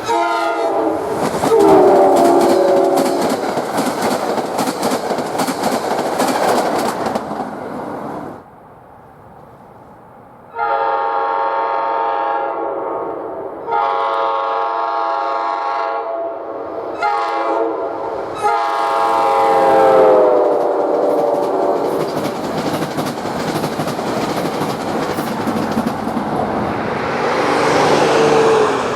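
K5LA five-chime air horns on electric passenger trains sounding several blasts, some dropping in pitch as the train passes, with wheels clattering over the rail joints as the cars go by. A short quieter gap comes about a third of the way in, between passes.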